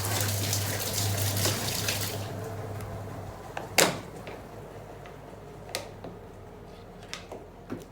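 Twin-tub washing machine spin dryer running, its motor humming while the spun-out water rushes from the drain hose. Both die away within the first three seconds, followed by one sharp knock about four seconds in and a few light clicks.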